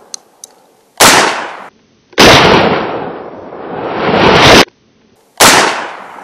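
Mossberg Maverick 88 12-gauge pump shotgun firing double-aught buckshot, three shots about one, two and five and a half seconds in. The second shot is followed by a long, loud rushing noise that swells again and cuts off suddenly.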